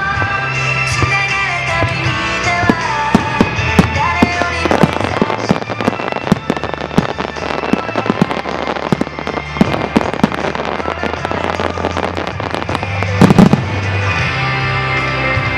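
Starmine fireworks barrage: rapid shell bursts and crackle over music played for the show, the bursts coming thickest in the middle, with one especially loud boom about 13 seconds in.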